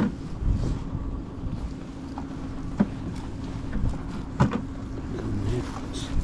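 A small motor on the boat humming steadily over a low wind rumble on the microphone, with two sharp knocks from handling in the boat, about three and four and a half seconds in.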